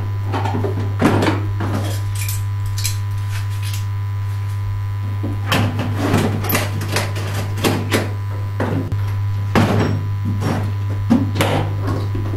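Irregular knocks and clatters of objects being handled and moved about, over a steady low hum.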